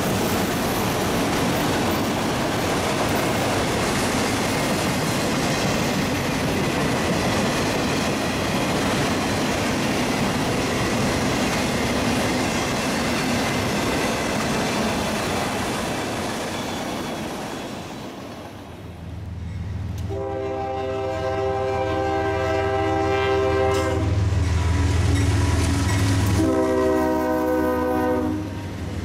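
A train rolling past, a steady rushing rumble that fades out after about 18 seconds. Then a diesel locomotive's horn sounds a long blast of several notes at once, about six seconds, followed by a shorter blast of about two seconds, over the low drone of the locomotive's engine.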